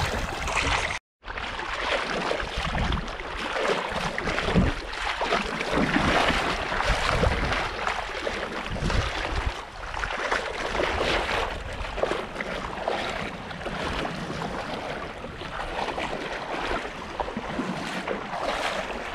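Small waves lapping and sloshing around a camera held just above shallow salt water, with wind buffeting the microphone in irregular gusts. The sound cuts out for a moment about a second in.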